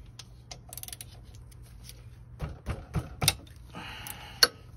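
Metal clicks and taps of a wrench being fitted to the motorcycle engine's 17 mm oil drain plug and turned, with a quick run of sharp clicks midway and a short rattle and a sharp click near the end.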